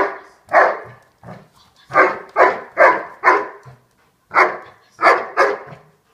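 Doberman barking repeatedly, about ten sharp barks in uneven clusters. This is the dog "talking to the ball": barking at the tennis ball it wants while it holds its place at the boy's leg, waiting to be released to get the ball.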